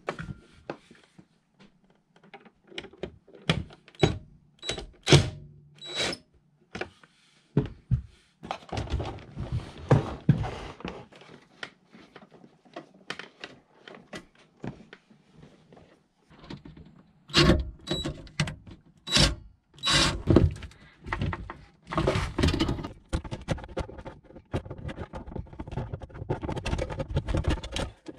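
Irregular knocks, clunks and rattles of hands working in a cramped wiring compartment, pulling bundles of wires and loosening the ground wire's terminal on an RV distribution panel. The handling gets busier and more continuous near the end.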